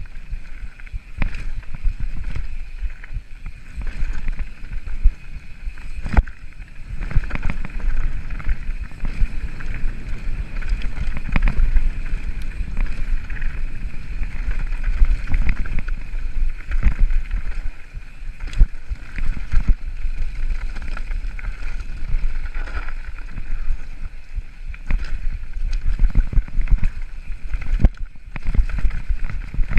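Mountain bike descending a loose rocky gravel trail: tyres crunching over stones and the bike clattering with frequent sharp knocks, over a steady rumble of wind on the camera microphone.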